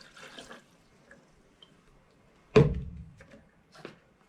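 Sugar-water nectar pouring into a hummingbird feeder trails off in the first half second. About two and a half seconds in there is a single loud thump, then a few light clicks.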